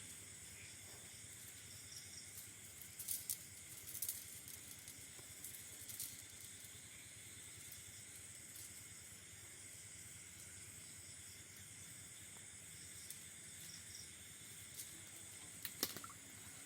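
Faint, steady chorus of night insects such as crickets, a high-pitched shimmer of several held tones. A few sharp clicks stand out, around three to four seconds in, about six seconds in and again near the end.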